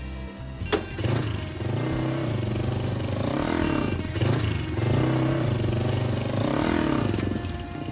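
Motorcycle engine of a Filipino tricycle (motorcycle with sidecar) running and revving as it drives off, its pitch rising and falling several times. A sharp click sounds just under a second in.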